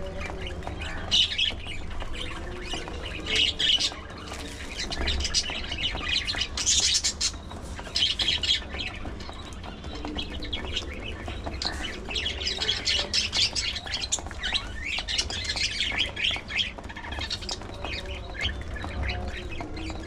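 Budgerigars chattering and squawking in quick, scratchy bursts, several birds calling over one another.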